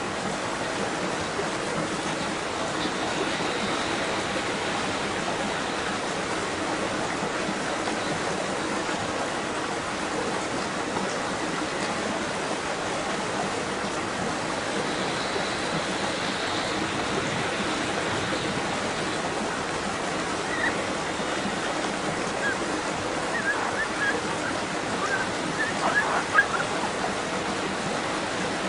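Steady rush of flowing water, an even unbroken noise, with a few short bird chirps in the last several seconds.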